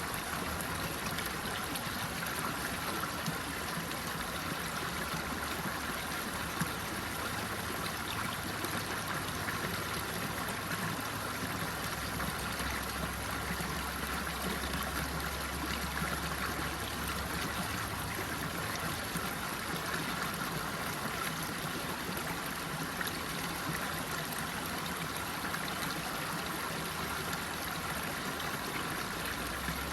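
Running water flowing steadily, like a stream, with an even rushing and trickling that does not let up.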